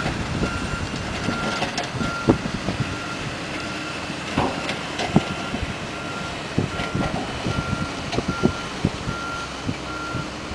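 Reversing alarm of a heavy construction machine: a steady high beep repeating about twice a second, over diesel machinery running, with scattered sharp knocks, the loudest about two seconds in.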